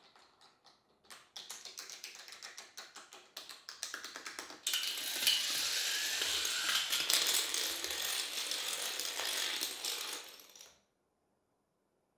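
A long chain of toy dominoes toppling one after another. It starts as a few separate clicks, speeds up into a fast run of clicking, and about four and a half seconds in becomes a dense, louder clatter that cuts off suddenly near the end.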